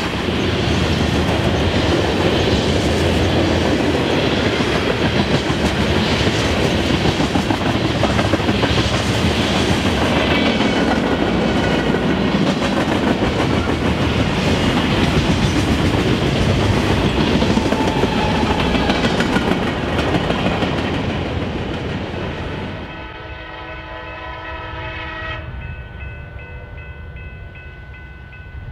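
Freight cars rolling past at close range: steel wheels rumbling and clacking rhythmically over the rail joints. The rolling noise fades after about twenty seconds, and a multi-note diesel locomotive horn takes over, sounding a steady chord to the end.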